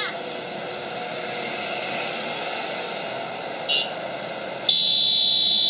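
Road and traffic noise with a steady hiss from a roadside recording, with a short chirp about two-thirds of the way in. Near the end a loud, steady, high-pitched electronic beep cuts in suddenly and holds.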